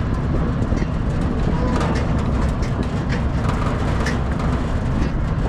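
Farm ride train rolling steadily, a continuous low rumble with the open wooden passenger car rattling and clicking.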